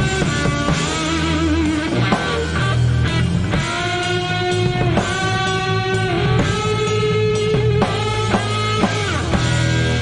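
Rock band playing an instrumental passage: a lead guitar plays long held notes that waver and bend, over bass and drums.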